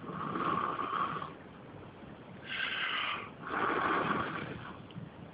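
A person blowing hard on smouldering wood in a clay pot oven to rekindle the fire, in three long breaths of about a second each.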